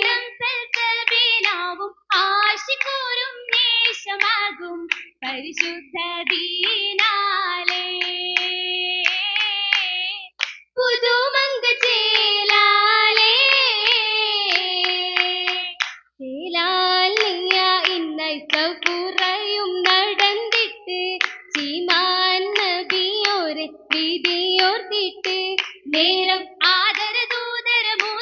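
Oppana: girls singing a Mappila song together, their voices holding long notes, with the dancers clapping in quick rhythmic runs in time with the song. The clapping drops out during some of the held notes and comes back in dense runs.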